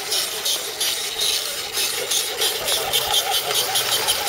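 Electric motor and gears of a scale RC crawler whirring as a 6x6 model truck crawls slowly down a rutted dirt trail. Over it runs a steady high buzz that pulses about four times a second.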